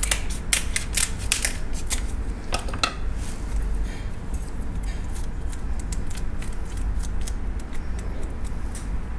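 Kitchen scissors snipping through crab leg shells: a quick run of sharp clicks and crunches in the first three seconds, then scattered snips, over a steady low hum.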